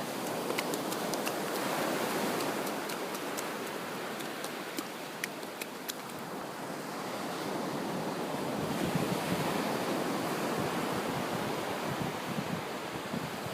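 Ocean surf washing in, swelling up twice, with a few faint ticks in the first half.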